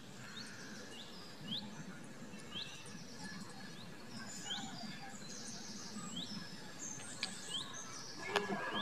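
Birds chirping: a short rising chirp repeated about once a second, with buzzier calls higher up, over a faint steady hiss. A few light clicks come near the end, from a spoon against the clay pot.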